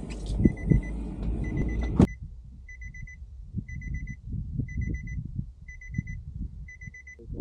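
Electronic warning chime of a parked car with its driver's door open, beeping in quick runs of about four high beeps that repeat about once a second. A sharp knock comes about two seconds in, and low, uneven rumbling follows under the beeps.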